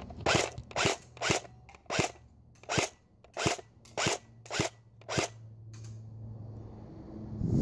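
Steyr AUG A2 airsoft electric gun (AEG) with a metal V3 gearbox firing single shots in semi-auto. There are nine shots, one every half to three-quarters of a second, and they stop about five seconds in.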